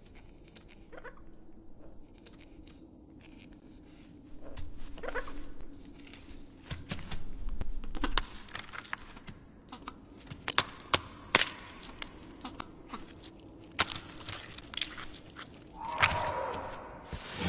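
Designed film sound of a feathered dinosaur in a cave: scattered sharp crunches and clicks of its movement over a faint steady low drone, with a short pitched call near the end.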